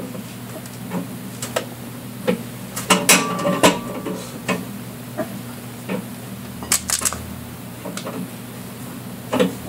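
Irregular metal clicks and clanks of a scissor jack being cranked by its handle rod, raising the car, with a cluster of rattling knocks about three seconds in. A steady low hum runs underneath.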